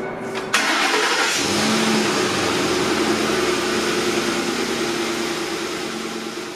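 2008 Ford F-150's 5.4 L V8 engine started up, catching about half a second in and settling into a steady idle: the first start after an oil change, run to check for leaks.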